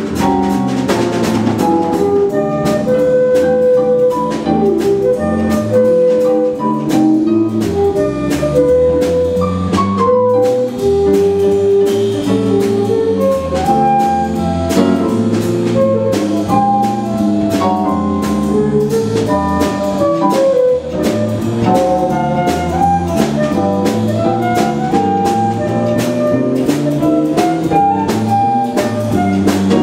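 Jazz quartet playing: a flute carries the melody over electric keyboard, electric bass and drum kit, with cymbal strokes keeping time.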